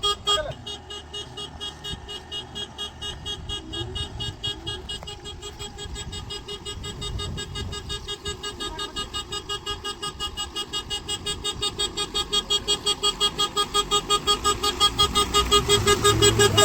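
A heavy vehicle's reverse-warning horn sounding a rapid pulsing beep, about six beeps a second, over a diesel engine's rumble. Both grow louder near the end.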